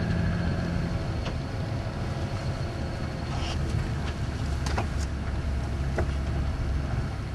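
2007 Toyota Sienna's 3.5-litre V6 running, heard from inside the cabin, with a steady low hum and a light ticking that the dealer took for piston slap.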